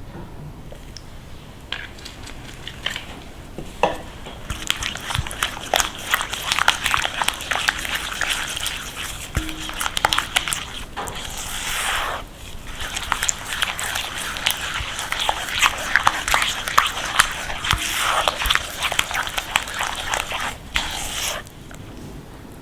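Kitchen utensil working ingredients in a bowl: a dense, irregular run of scraping and clicking that starts about four seconds in and stops shortly before the end.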